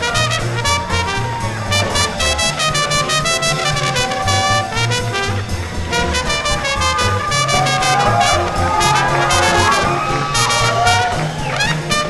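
A live small-group swing band playing an instrumental: horns over a walking bass line keeping an even beat.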